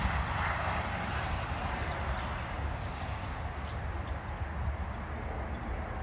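Wind buffeting the microphone: a steady, unsteadily flickering low rumble under a broad outdoor hiss.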